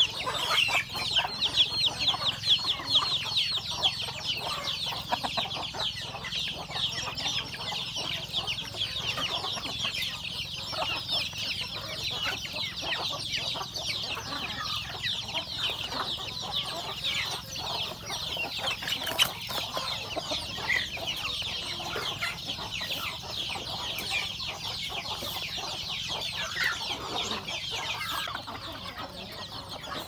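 A flock of chickens feeding: a steady chorus of rapid, high chick peeps, with hens clucking.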